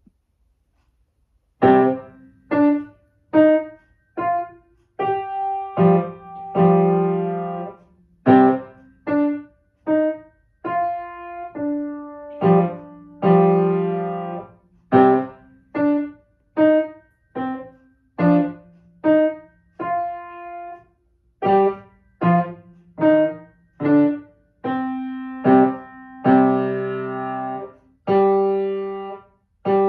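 Solo piano playing a student piece of mostly short, detached notes and chords, with a few longer held chords, starting about a second and a half in.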